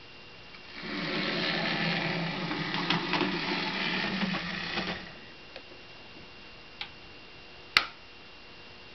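Small electric motor and gearing of a narrow-gauge model locomotive running steadily for about four seconds as the locomotive drives onto the turntable, then stopping. A single sharp click comes near the end.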